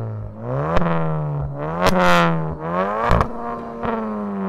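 Honda Civic Type R FK8's turbocharged 2.0-litre four-cylinder free-revving in quick blips through an XForce stainless cat-back exhaust with its VAREX valve open. The pitch climbs and falls about four times, with sharp cracks near the tops of the revs.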